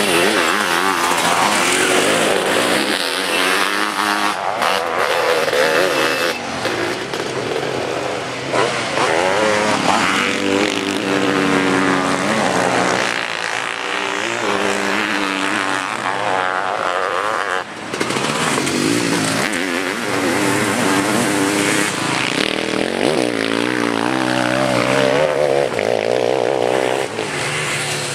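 Sidecarcross outfits' motorcycle engines racing on a dirt track, revving hard with the pitch rising and falling again and again as outfits accelerate, shift and pass by, several machines overlapping.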